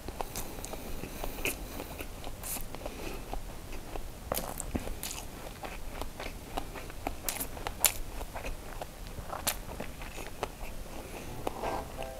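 Close-miked chewing: a person eating a mouthful of rice, with scattered wet clicks and smacks of the mouth.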